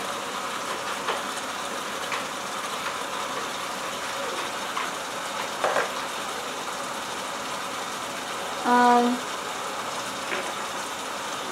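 Chicken drumsticks sizzling steadily in hot oil in an electric cooker pan, with a few light clicks and a brief voice sound about nine seconds in.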